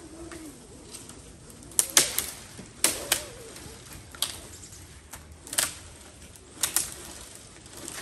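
Twigs and small branches snapping and crackling underfoot or against the rope: about ten irregular sharp cracks, several in quick pairs.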